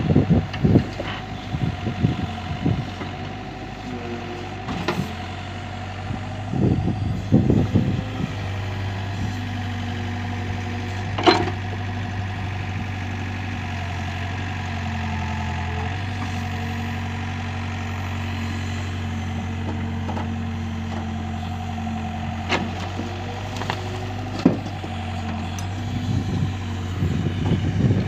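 Doosan mini excavator's diesel engine running as it digs soil, with scattered knocks and clanks from the work, the sharpest about eleven seconds in. The engine hum holds steadier through the middle of the stretch.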